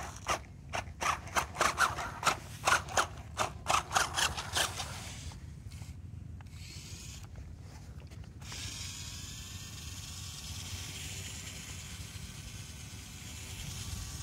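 Rapid rasping scrapes of a toy RC rock crawler's wheels working in sand, about four a second for the first four or five seconds. After that only a steady faint hiss remains.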